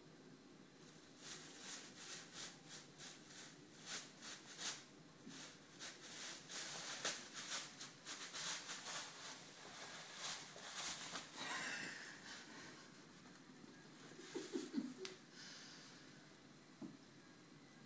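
A thin plastic bag crinkling and rustling in quick irregular crackles as a cat paws, bites and rolls on it, busiest over the first twelve seconds or so, then sparser.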